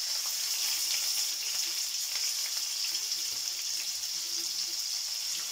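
Fish fillets sizzling in hot cooking oil in a frying pan as they are laid in, a steady hiss.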